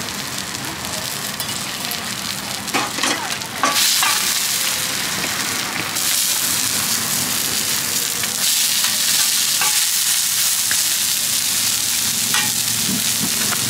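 Food frying and sizzling as it is stir-fried in a hot pan, the sizzle growing louder about four seconds in, with a few clicks around three seconds in.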